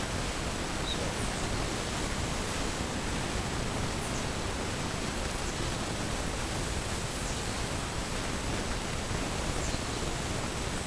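Steady, even hiss from an external microphone running on a weak, run-down battery, with a few faint short high chirps over it.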